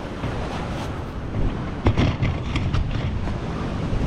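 Wind buffeting the microphone in a steady low rumble, with ocean surf behind it. A handful of short knocks come about two seconds in.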